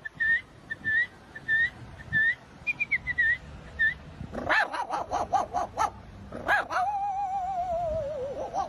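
A person imitating animals with the voice: a string of short, high whistled chirps about twice a second, then a quick run of dog-like yelps and a long wavering howl that slides down in pitch.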